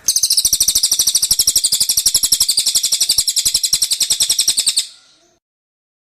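Cililin bird singing: a fast, even trill of high chips, about ten a second, that runs for about five seconds and then stops abruptly.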